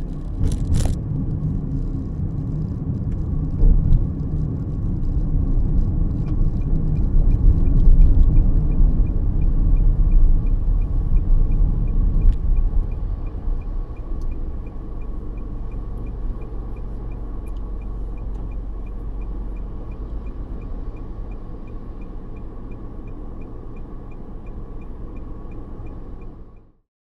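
Car heard from inside the cabin while driving, a steady low engine and road rumble that eases off about halfway through as the car slows in traffic. A light, evenly spaced ticking, about two to three a second, runs through the second half, and the sound cuts off abruptly just before the end.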